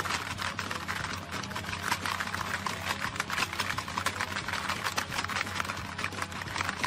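Rapid plastic clacking and rattling of a Hungry Hungry Hippos game as players slam the hippo levers, with kibble rattling on the plastic board.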